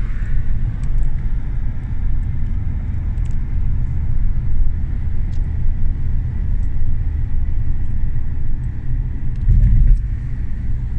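A car driving along: a steady low rumble of road and engine noise that swells briefly near the end.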